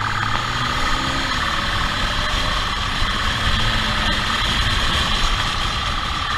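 Motorcycle engine running at speed under heavy wind rush on the bike-mounted microphone, its pitch rising and falling as the rider works the throttle.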